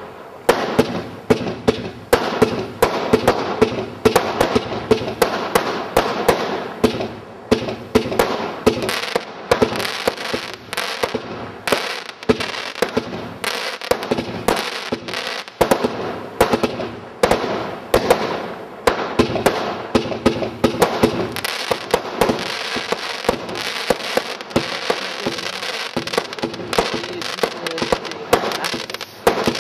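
Extra FX 'The Boss' single-ignition firework compound firing a continuous barrage of mines and aerial bursts: rapid, sharp reports one after another with crackle between them.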